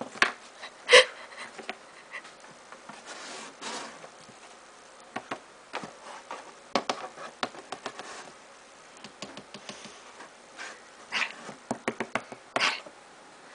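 A cat scratching and pawing at the inside of a cardboard box, giving bursts of sharp clicks and scrapes on the cardboard, with a coin tapping at the slot.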